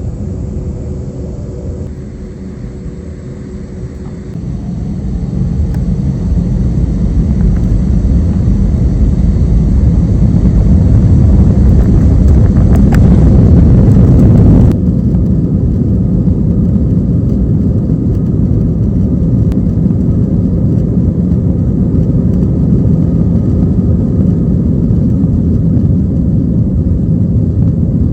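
Loud, steady low rumble of a vehicle in motion. It swells over the first dozen or so seconds, then cuts abruptly about halfway through to a slightly quieter, steady rumble.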